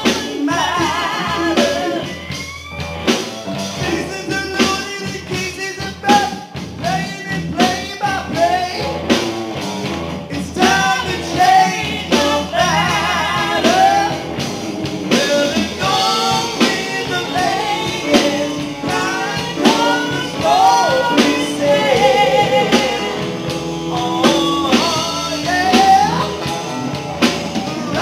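Live rock band playing: singing through a PA over electric guitar, bass guitar and drums with a steady beat.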